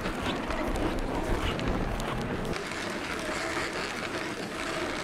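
Reindeer-drawn sled moving slowly over packed snow: a steady hiss of the runners with small crunches and clicks.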